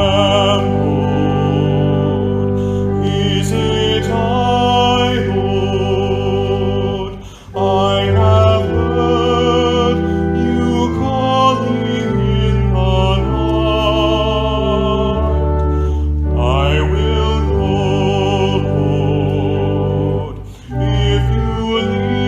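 Sung worship music: a singer with strong vibrato over sustained low accompaniment, with a brief break between phrases about seven seconds in and again near the end.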